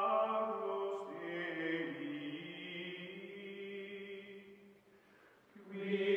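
Outro background music of long held notes that shift pitch about a second in, fade down near the end, then swell up again.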